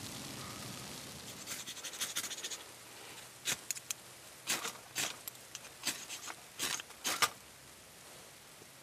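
Soft rustling of dry tinder, then about six quick, sharp scraping strikes of a fire starter over some four seconds as it is struck into the tinder bundle to light a fire.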